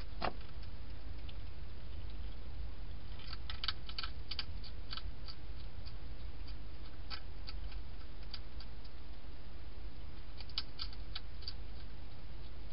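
Wild hedgehog crunching dry food: irregular small sharp clicks in clusters, about three seconds in, again around seven to nine seconds and near eleven seconds, over a steady low hum.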